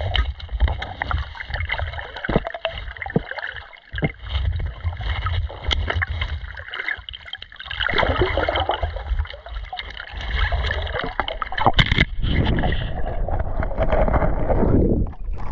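Water sloshing and gurgling close to the microphone, with scattered clicks and knocks and a sharper crack about twelve seconds in.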